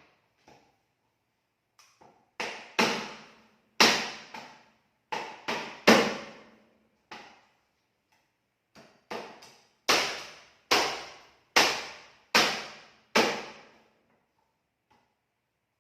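Chicken carcass being chopped with a heavy knife on a chopping board for eel bait: about fifteen hard chops, each with a short ring, in two runs with a brief pause midway.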